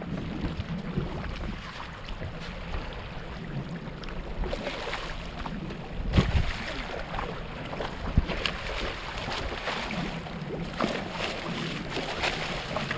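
Sport-fishing boat's engine running steadily under wind and water noise on deck, with sharp knocks, the loudest about six and eight seconds in.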